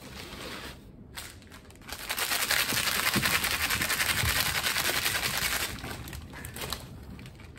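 A plastic cat-treat pouch being torn open and crinkled in the hands. It makes a dense crackling rustle that starts about two seconds in and runs for about three and a half seconds. This is the sound of a treat packet that draws cats.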